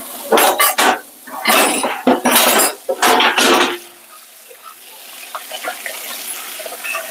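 Dishes and cutlery clattering at a kitchen sink with water splashing: several loud bursts in the first four seconds, then quieter scattered clinks.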